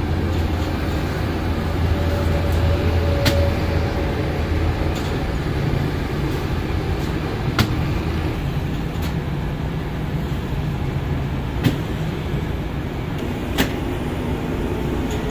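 Steady mechanical running noise with a low hum from a bakery's semi-automatic rotating flatbread oven, with a few sharp clicks every few seconds.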